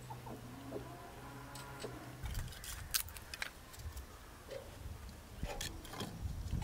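Soft clucking of chickens, then a series of sharp metal clanks and knocks as the door of a rusty sheet-iron wood stove is handled and firewood is laid in its firebox.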